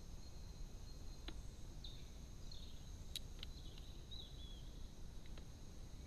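A few sharp taps of a Eurasian jay's bill on a plastic feeder tray as it feeds, faint over a steady outdoor hiss. A few faint chirps from small birds sound in the background around two and four seconds in.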